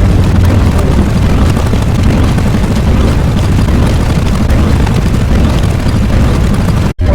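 Stock sound effect: a loud, steady rumbling roar, heaviest in the low end, that cuts off abruptly near the end.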